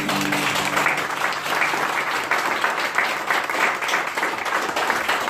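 Small audience applauding, a dense patter of many hands clapping. The band's last chord dies away in the first second.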